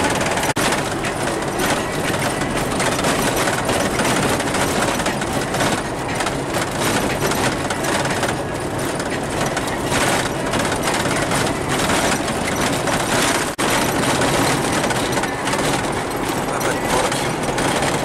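Noise inside a moving vehicle's cabin on a gravel road: tyres running over gravel and the engine under way, with steady rattling and clatter. The sound drops out briefly twice, once just after the start and once about two-thirds of the way through.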